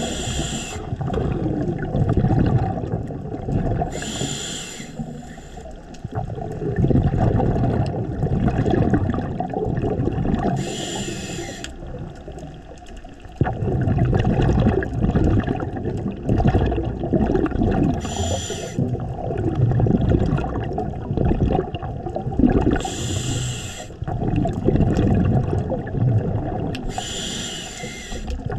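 Scuba diver breathing through a regulator underwater: a short hissing inhale every four to seven seconds, six in all, each followed by a long stream of bubbling exhaled air.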